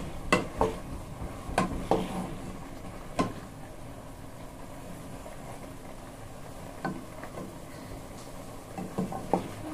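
Cookware clatter while cooking: several sharp knocks, a cluster in the first three seconds and a few more near the end, over a steady hiss.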